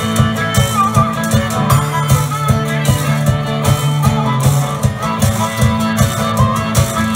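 Live blues band playing an instrumental passage: electric and acoustic guitars over drums with a steady beat, and a lead melody line that bends in pitch.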